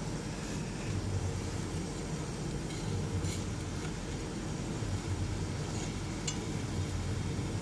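A metal fork clinking lightly a couple of times against a wok of simmering trout on a camp stove, over a steady low rumble.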